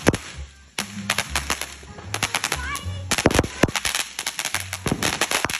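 Brothers "Gingerbread Man" ground fountain firework spraying sparks, with a rapid, irregular crackle of sharp pops throughout.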